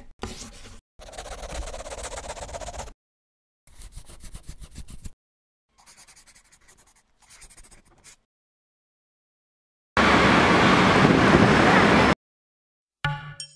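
Pen-on-paper scribbling sound effects in three short bouts while a line is sketched, then a loud, steady rush of noise for about two seconds that cuts off sharply. Near the end a chiming tune begins.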